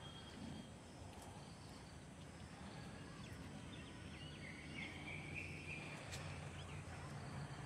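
Faint outdoor ambience: a steady low hum under quiet background noise, with scattered short bird chirps, a few clustered around the middle.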